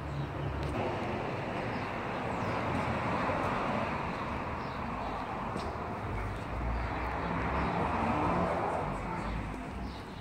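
Outdoor urban background noise: an even hiss that swells for several seconds through the middle, with a low rumble underneath.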